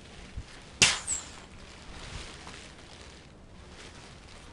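A deflating kite's canopy fabric snapping once, a sharp crack about a second in with a quick second flick, then light rustling of the loose fabric.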